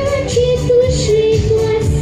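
A song playing: a sung melody of held notes stepping between pitches over an accompaniment with a steady, even beat.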